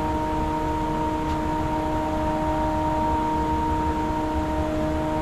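Steady machine hum with several unchanging tones over a low rumble.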